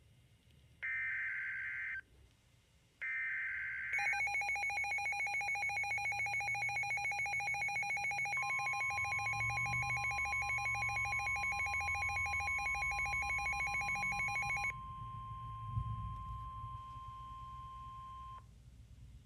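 Emergency Alert System tones: the last two of the three SAME header data bursts, harsh digital screeches about a second each, then the pulsing, buzzy two-tone EAS attention signal for about ten seconds. About halfway through it, a steady single-pitch NOAA Weather Radio alert tone joins in and carries on alone for a few seconds after the two-tone signal stops.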